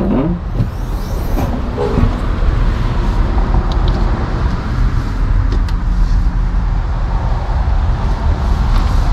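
Steady low rumbling noise, with a few short clicks and knocks as a Dodge Durango's rear liftgate is unlatched and raised in the first few seconds.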